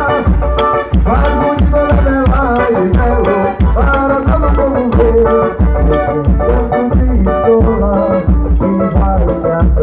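Bumba-meu-boi toada from Maranhão: heavy drums keep a steady beat under a gliding melodic line and instruments.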